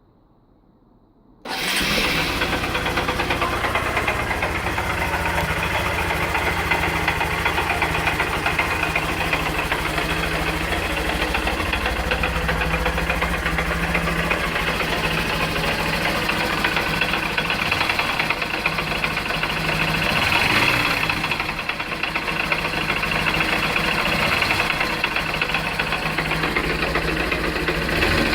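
2013 Honda CBF 125's single-cylinder engine starting about a second and a half in, then idling with a pretty nasty knock and briefly getting louder about two-thirds of the way through. The knock came from a small crack in the ring gear around the clutch basket.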